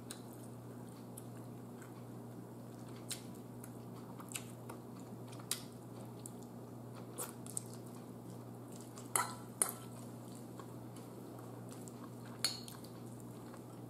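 Metal fork clicking and clinking against a bowl of fettuccine alfredo every second or two, with quiet chewing between, over a steady low hum.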